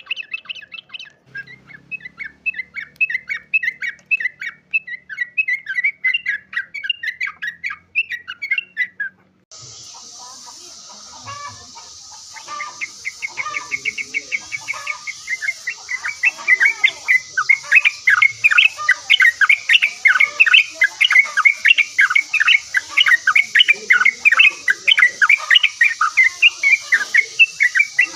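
Sooty-headed bulbul singing in quick, chirping phrases. About nine seconds in, the sound cuts to a hissier recording where the song comes as a dense, rapid, louder chatter.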